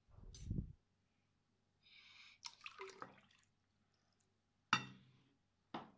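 Water poured from a drinking glass into a glass mixing bowl of liquid dough base, a short splashing pour, with a dull knock as the glass is lifted and two sharp knocks near the end.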